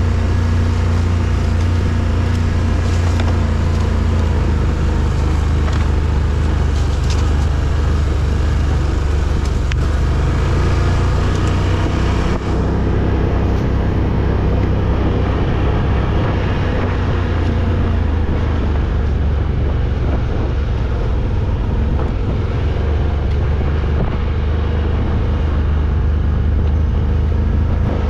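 A vehicle engine running steadily as it drives, a loud constant low drone.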